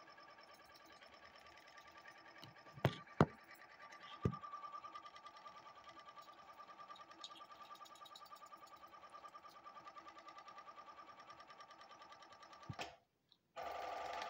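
Oral-B electric toothbrush running steadily in the mouth while brushing, a fast even buzz. Three sharp knocks come about three to four and a half seconds in. Near the end the buzz cuts out for under a second, then comes back louder.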